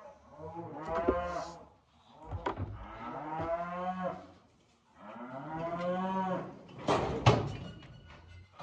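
Cattle mooing: three long moos one after another, then a few sharp, loud bangs about seven seconds in.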